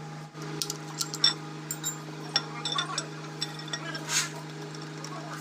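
Scattered metallic clinks and light scraping as the camshaft is drawn out of a Kubota M9000 diesel engine block, steel on cast iron.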